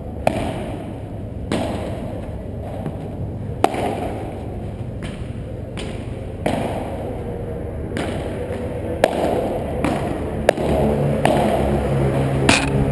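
Padel rally: a ball struck by solid padel rackets and bouncing off the court, about seven sharp pocks spaced one to two and a half seconds apart.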